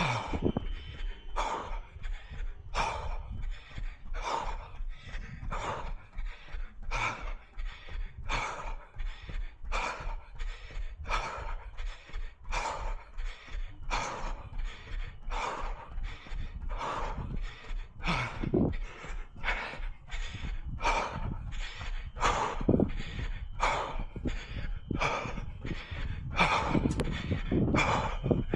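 A runner breathing hard in a steady rhythm, about three breaths every two seconds.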